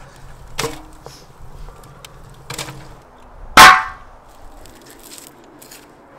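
Heavy bison meat and bone knocking against a metal surface: two duller knocks, then a loud metallic clang about halfway through that rings briefly before fading.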